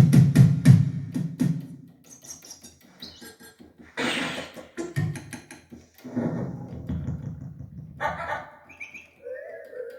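Yamaha PSR-530 keyboard playing a drum rhythm that stops about a second and a half in, followed by single keys struck on different preset voices: a noisy hit about four seconds in, short notes, and gliding animal-like sound-effect calls near the end.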